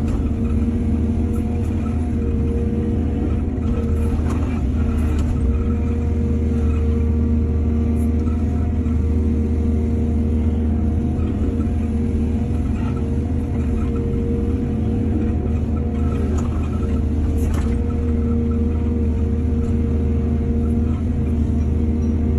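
Heavy diesel engine of an excavator running steadily under load, with a few short knocks and clanks along the way.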